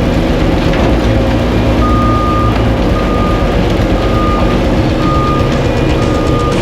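Heavy equipment's backup alarm beeping, starting about two seconds in and repeating about once a second, while the machine's engine runs steadily underneath.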